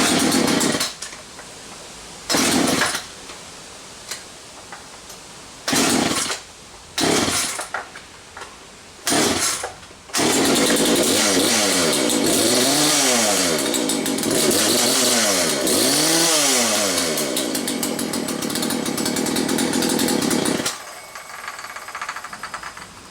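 Poulan 3816 two-stroke chainsaw engine being started: several brief bursts as it fires and dies, then it catches about ten seconds in and runs for about ten seconds, the revs rising and falling repeatedly, before it cuts off suddenly.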